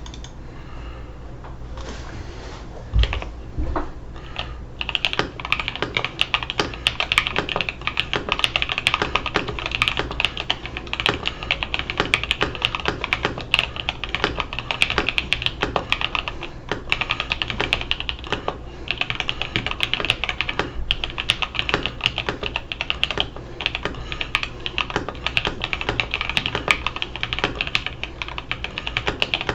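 Typing on a Satisfaction 75 mechanical keyboard fitted with lubed, broken-in NovelKeys Blue Cream linear switches, a carbon-fibre plate and XMI Cadet keycaps. A few scattered keystrokes come first, then fast, continuous typing from about five seconds in.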